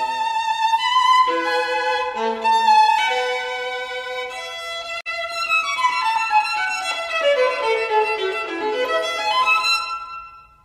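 Violin music: a melody of quick changing notes, with a long falling run of notes in the second half that turns and rises again before the music fades out near the end.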